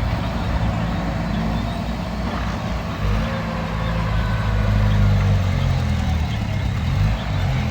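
Heavy diesel engine running steadily, swelling a little in loudness about halfway through.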